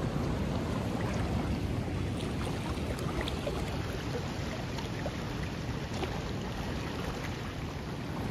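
Steady rush of high, fast-flowing river water.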